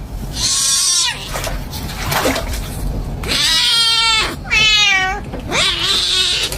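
Domestic cat meowing and yowling in protest at being bathed: several drawn-out calls, the longest about two seconds and falling in pitch.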